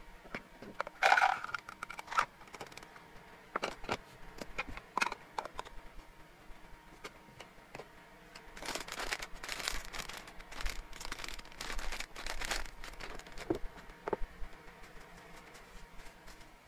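Plastic food tubs and lids being handled on a table: a loud plastic clack about a second in and scattered taps and clicks, then several seconds of a plastic snack bag crinkling, with a few more clicks near the end.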